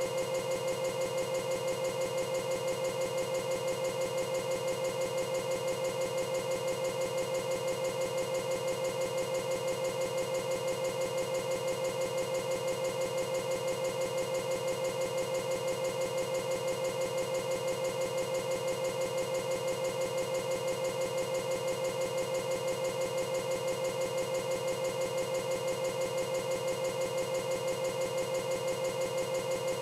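Steady buzzing drone made of a few fixed tones, pulsing rapidly and evenly without any change: a short fragment of corrupted audio stuck in a loop, not music or any live sound.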